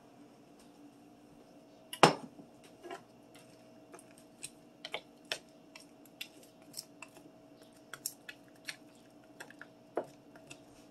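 Wooden spoon knocking and scraping against a square nonstick skillet while stirring pork, vegetables and ramen, in many short irregular taps, with one loud knock about two seconds in. A faint steady hum runs underneath.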